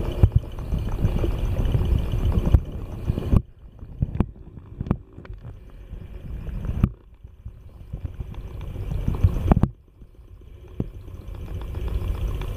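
Muffled low rumble and gurgling of water moving around a camera held underwater, with a few sharp knocks. The rumble breaks off suddenly three times.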